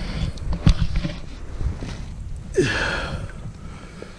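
Handling noise: a few sharp knocks and rustles over a low rumble, with a short breath about two and a half seconds in.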